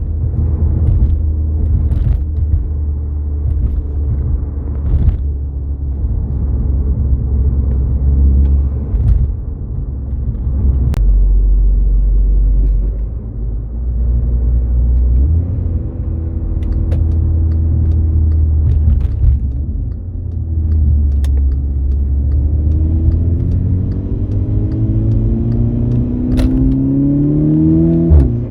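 Volkswagen Golf GTI Mk6's turbocharged four-cylinder engine with a COBB SF cold air intake and a 3-inch dump pipe, heard from inside the cabin while driving. A low drone holds steady, dips, then climbs in pitch as the car accelerates over the last several seconds, with a few sharp clicks.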